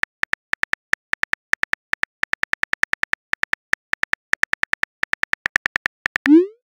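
Phone-keyboard key-click sound effects, one per typed letter, in a quick, slightly uneven run of about five clicks a second. Near the end comes a short rising whoosh, the message-sent sound, louder than the clicks.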